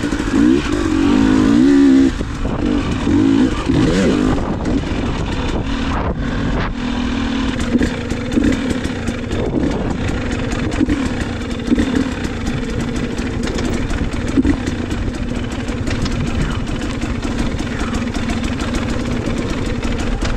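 Dirt bike engine revving hard and rising and falling in pitch for about two seconds, then running at a steadier, lower speed. Scattered clatter and knocks run over the engine from the middle onward.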